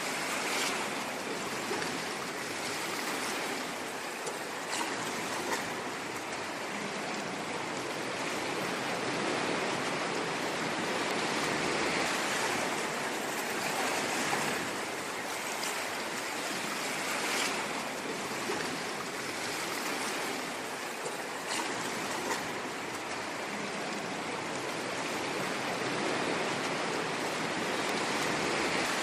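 Ocean surf washing on a shore: a steady hiss of breaking and receding waves that swells and eases gently, with faint crackles of foam.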